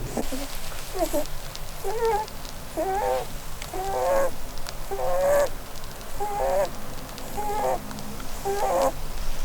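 A sleeping Holland lop rabbit snoring in short, pitched, squeaky notes that bend up and down, about once a second. Holland lops tend to snore because of their facial bone structure, and this is not a sign of illness.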